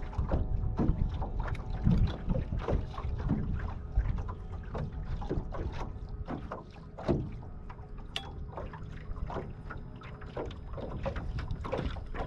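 Small waves lapping and slapping irregularly against the side of a fishing boat, with wind on the microphone.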